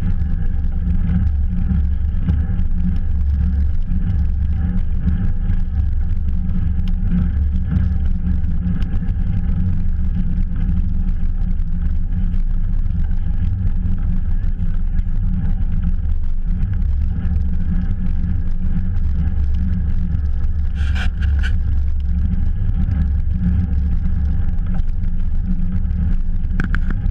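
Steady low wind rumble buffeting a GoPro action camera's microphone while riding a bicycle fast, with a brief higher rattle about three-quarters of the way through.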